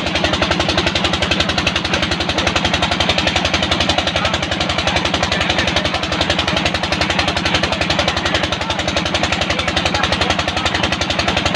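Single-cylinder "Peter" diesel engine driving a tube-well pump, running with a rapid, even knocking beat, over the rush of water gushing from the discharge pipe into the tank: the pump has primed and is lifting water.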